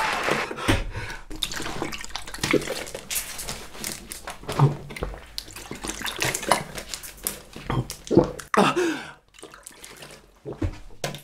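A plastic water bottle handled and then drunk from in big gulps, the water glugging and spilling, with the bottle crackling and some short pained vocal noises from the drinker.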